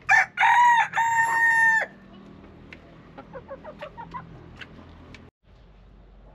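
A rooster crowing once: a cock-a-doodle-doo in three parts, the last note long and held before it drops away. Softer short clucks follow a second or so later.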